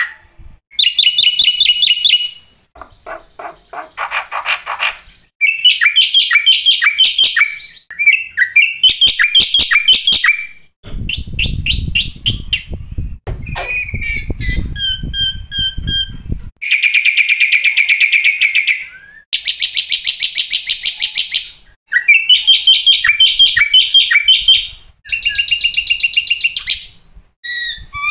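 Black-winged myna (jalak putih) song: a run of varied phrases of rapid trills, rattles and repeated sharp notes, separated by short pauses. A low rumbling noise sits under the song for several seconds in the middle.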